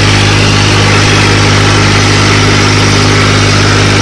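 Farm tractor's diesel engine running at a steady speed, heard loud and close from the driver's seat.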